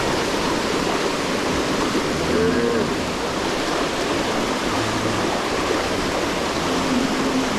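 Herd of cattle wading through a creek: a steady rush of churning, splashing water, with a few brief low calls heard over it.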